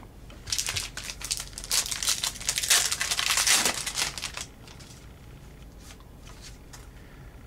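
The foil wrapper of a Panini Contenders hockey card pack being torn open and crinkled by hand: a crackling rustle for about four seconds, then it stops.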